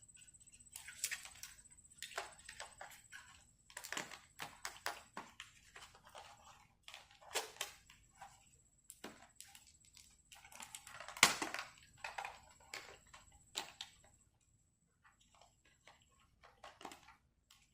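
A 1 TB laptop hard drive being handled and slid into the laptop's drive bay and connector: irregular clicks, taps and scrapes of plastic and metal, the loudest about eleven seconds in and fewer after about fourteen seconds.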